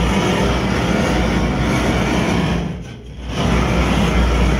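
Handheld gas torch flame blowing steadily as it is passed over a wax toilet ring, melting the wax so it sticks to the floor and runs around the drain pipe to seal it. The flame noise drops away briefly about three seconds in, then comes back.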